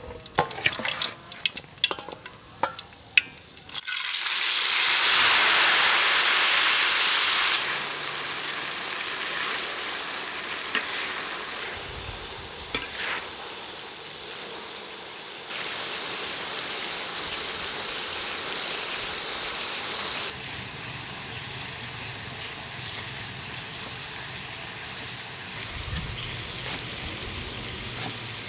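Silkworms frying in hot oil in a wok. After a few sharp clicks, a loud sizzle jumps up about four seconds in as the silkworms go into the oil, then settles to a steadier, quieter sizzle as they are stirred with a metal spatula.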